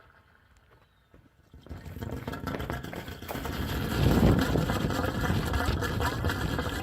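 Gurgling and bubbling inside a swimming pool heater's gas line as gas is forced through water standing in the pipe. The water starves the heater of full gas pressure. It starts after about two seconds of near silence, is loudest around the middle and carries on irregularly.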